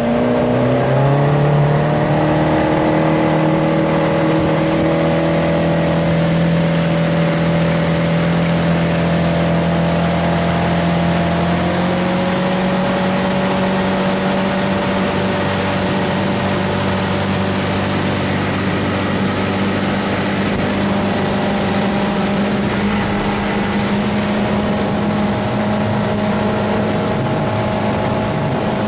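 A 115-horsepower outboard motor on a 17-foot bay boat pulling away: its pitch climbs over the first second or so as the boat gets going, then holds steady, with a small further rise about twelve seconds in. A steady rush of wind and water runs under the engine.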